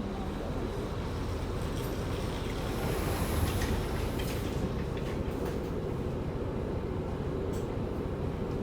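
Steady rumble of a city bus heard from inside the passenger cabin, with a brief hiss about three seconds in.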